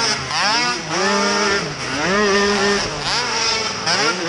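Youth race quad's small engine heard from the onboard camera, revving up and dropping back about four times as the throttle is opened and shut through the track's turns and straights.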